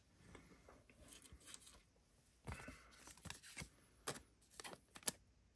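Faint handling of trading cards and a clear plastic card sleeve: soft rustling about halfway through, then a couple of sharp ticks near the end.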